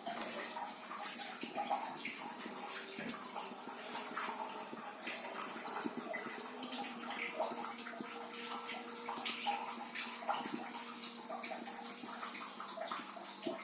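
Modena GI 0620B gas instantaneous water heater running: a steady rushing, crackling, gurgling noise with a faint hum. It is switched off with its water inlet closed, yet a small flame keeps burning in it.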